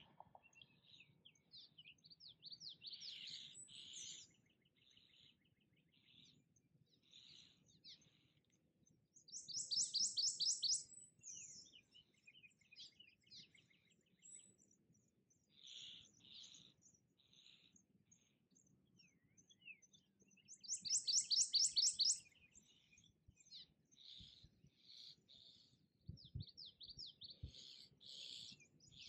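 A prothonotary warbler sings twice, about ten seconds apart, each song a quick series of repeated high notes lasting about two seconds. Between the songs comes the scattered squeaky chatter of a flock of cliff swallows.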